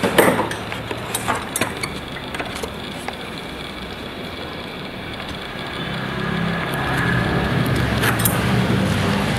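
A low steady drone from a designed soundtrack, with a sharp hit and a falling sweep at the start and a few short clicks after it. The drone swells from about six seconds in.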